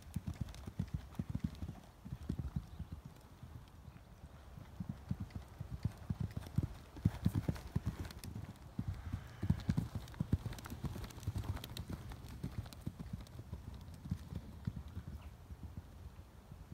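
A horse's hoofbeats on a soft sand arena surface as it is ridden around the school: a continuous run of dull thuds.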